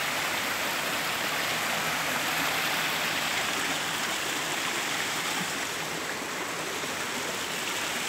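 Shallow rocky stream flowing over stones and boulders: a steady rush of water.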